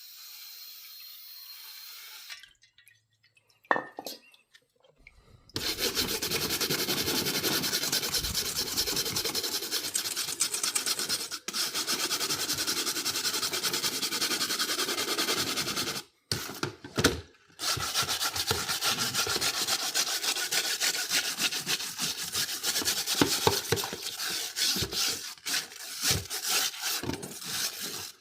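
Rapid scrubbing strokes on a greasy metal stove-hood grease filter grate, a dense rasping rub that stops briefly about two-thirds of the way through and then resumes.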